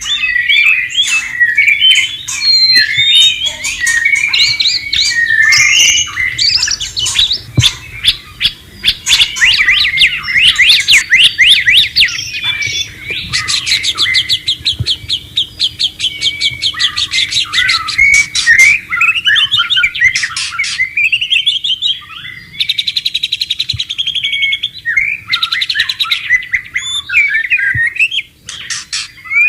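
White-rumped shama singing a continuous, varied song of whistles and chirps, with fast runs of repeated notes and a couple of buzzy phrases.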